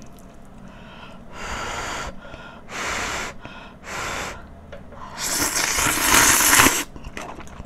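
A person slurping spicy jjamppong noodles and broth from a ladle: three short airy sounds, then a long, louder slurp about five seconds in.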